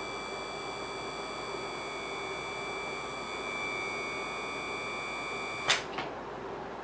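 Water-fuel electrolysis cell running on its pulsed drive circuit: a steady high-pitched electronic whine of several tones over a steady hiss of gas bubbling. Near the end a sharp click and the whine cuts off, followed by a second softer click, while the hiss goes on.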